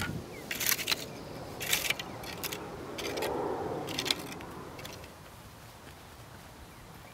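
Metal rake scraping and spreading loose dry dirt in short strokes, about four scrapes in the first four seconds with a softer rasping drag around the middle, then fading.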